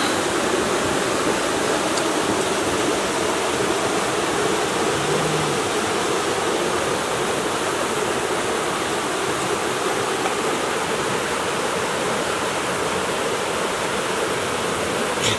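Small waterfall cascading over rocks into a stream pool: a steady rush of water.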